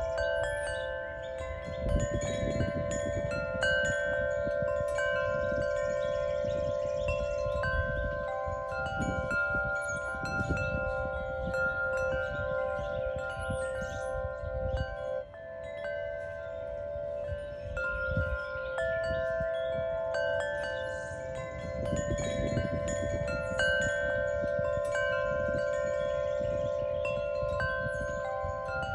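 Wind chimes ringing, many tuned metal notes struck at irregular moments and left to ring and overlap, with gusts of wind on the microphone underneath.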